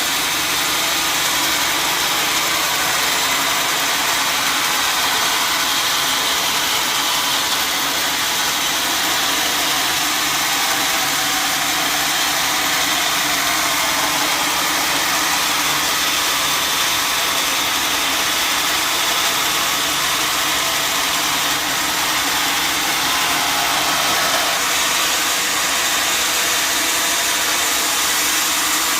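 Sawmill machinery running steadily, a loud, even mechanical noise that holds unchanged throughout.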